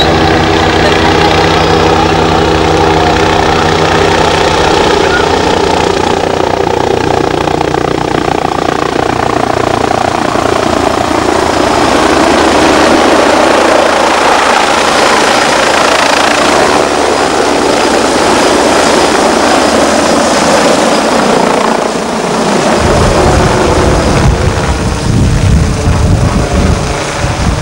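MBB Bo 105 helicopter flying low and close: the whine of its twin turboshaft engines and the noise of its main rotor, loud and steady. A gusty low rumble joins in over the last few seconds as it comes overhead.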